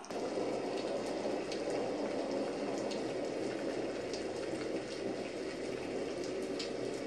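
Steady rain ambience: a dense, even rush of rain with a few faint drop ticks, starting abruptly at a cut.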